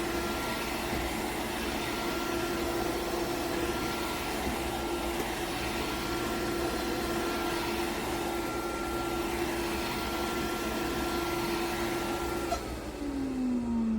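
MAMNV robot vacuum-mop running with a steady motor hum and whine. Near the end the steady sound gives way to a tone falling in pitch.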